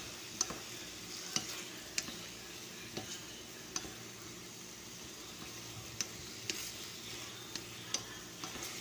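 Chicken pieces sizzling as they fry to golden brown in a metal pan, stirred with a wooden spatula that knocks and scrapes against the pan with sharp clicks every second or so.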